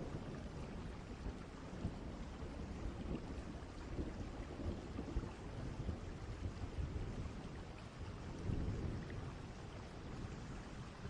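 Distant thunderstorm ambience: a steady wash of rain with low rolling thunder, one rumble swelling about eight and a half seconds in.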